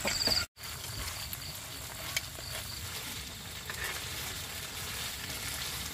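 Crickets chirping in short high trills, then after a brief dropout a steady sizzle of food cooking, with crickets still faint behind it.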